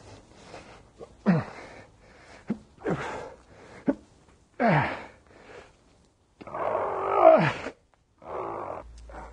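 A man grunting and groaning with effort as he hauls on a rope: a string of short cries that fall in pitch, with a longer, louder groan about seven seconds in.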